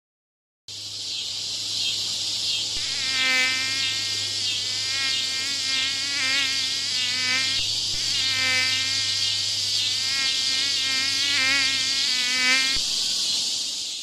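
Insect-like high buzzing that starts abruptly and holds steady, with a wavering, pitched whine on top that comes and goes.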